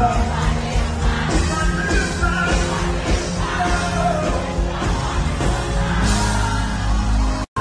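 Live Afrobeats stage performance: amplified band music with a steady beat, a lead singer, and yelling voices. The sound cuts out completely for a split second near the end.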